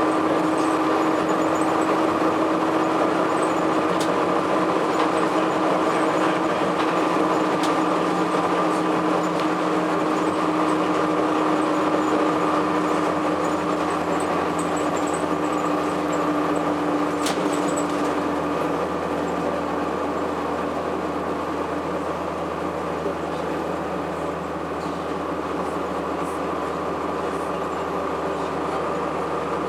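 A 2002 Blue Bird CS bus under way, its Cummins ISC inline-six diesel and Allison automatic transmission running with a steady whine and road noise. About two-thirds of the way through the lower whine fades and the sound eases a little.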